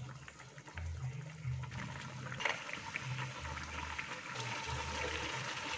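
Thick spiced chicken curry sauce simmering in a nonstick frying pan, bubbling with many small irregular pops.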